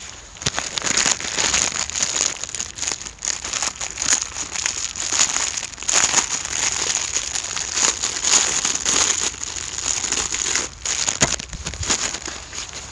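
Pine cones burning as fuel in a clay shichirin charcoal grill, crackling in a dense, continuous run of sharp crackles.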